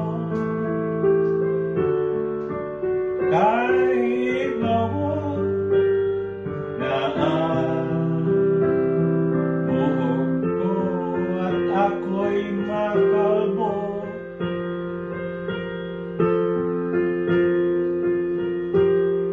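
Console digital piano playing a slow ballad, a sustained melody over held chords. A voice sings along without clear words twice, about three seconds in and again about seven seconds in.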